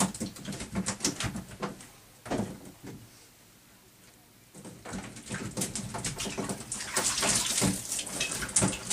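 Freshly caught Atlantic mackerel flapping and slapping on the boat, a rapid irregular patter of small thumps and wet slaps. It comes in two spells: a gap about three seconds in, then a denser, louder spell of flapping.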